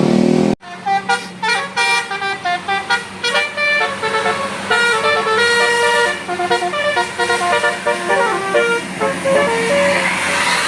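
Indonesian bus 'telolet' Basuri multi-trumpet musical horn playing a tune of short, quick notes. It starts abruptly about half a second in and plays until near the end.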